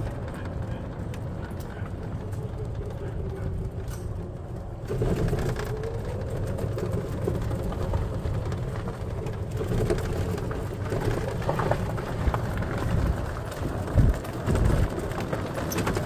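Golf cart driving along a gravel path, a steady rumble of its motor and tyres. It grows louder about five seconds in as the cart gets going, with a few knocks from the ride near the end.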